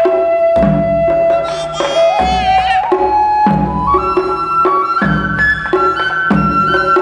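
Live taiko music: a shinobue (Japanese transverse bamboo flute) holds long notes that climb step by step in pitch, with a wavering ornament about two seconds in. Under it are deep strokes on a barrel-shaped taiko and quick sharp strokes on a small shime-daiko.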